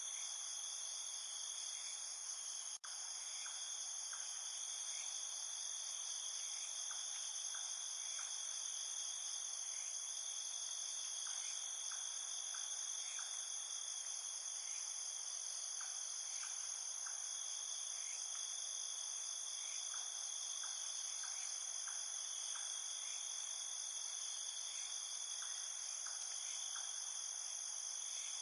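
Steady chorus of insects in the background, high-pitched and unbroken, with faint short chirps scattered through it. It drops out for a moment about three seconds in.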